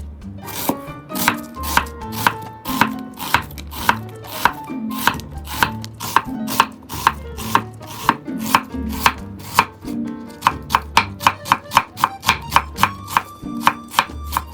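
Knife chopping on a cutting board in steady strokes, about two a second, quickening to about three a second around ten seconds in, over background music.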